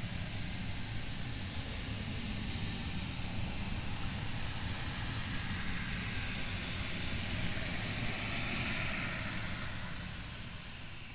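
Steady low rumble under a broad hiss, fading out near the end.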